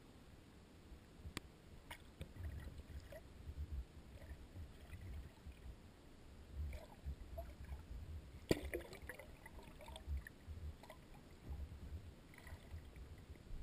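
Muffled water sound heard through a GoPro's waterproof housing held under a river's surface: a faint, uneven low rumbling and sloshing, with two sharp clicks, the louder a little past halfway.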